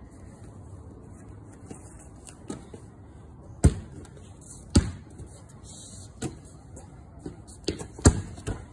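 Basketball bouncing on a concrete court: about six sharp bounces at uneven spacing, starting about three and a half seconds in.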